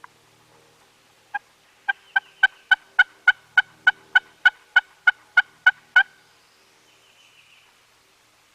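A long run of turkey yelps: about sixteen short, evenly spaced notes, about three a second, each of the same pitch, starting about a second and a half in and stopping about six seconds in.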